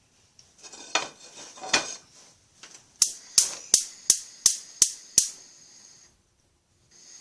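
Gas stove burner's electric igniter clicking seven times in a quick, even run, about three a second, over the hiss of gas. Before it, a couple of short rustling knocks of handling.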